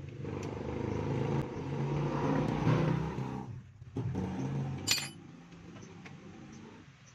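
A motor vehicle's engine running close by, swelling and easing in pitch and level, then dropping away after about three and a half seconds; it comes back briefly and ends with a sharp metallic click near five seconds.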